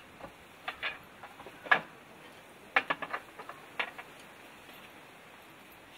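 Plates and bowls being set down on a table, a handful of sharp clinks and knocks, the loudest a little under two seconds in.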